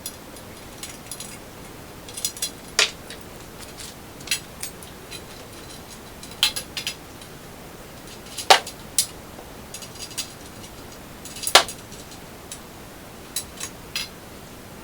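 Small metal hardware and hand tools clinking and tapping during bolt-up of a microlight's aluminium fuselage, with three sharper metal knocks spread through.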